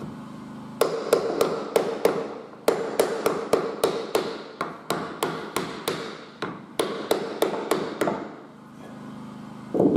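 A hammer tapping rapidly on woodwork, about four sharp taps a second, with a short pause early on and stopping a couple of seconds before the end. This is typical of fitting oak staircase floor capping, tapping it down tight into place.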